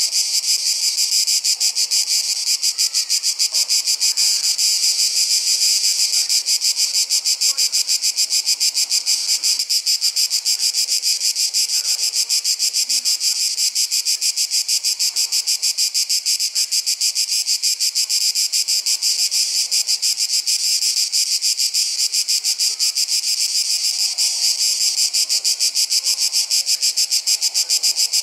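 Dense summer insect chorus: a steady, high-pitched buzzing song that pulses rapidly and evenly without a break.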